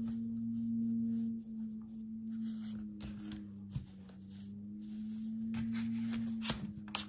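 A steady low humming tone whose upper notes shift slowly, under soft rustling and light taps of hands smoothing a cotton onesie over its stabilizer. Two sharp clicks near the end.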